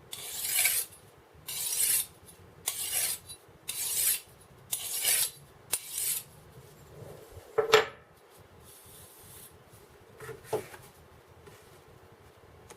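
Five even rasping strokes, about one a second, of an abrasive worked along the knife's metal. Then a single sharp metallic scrape with a falling ring, and a smaller scrape near the end.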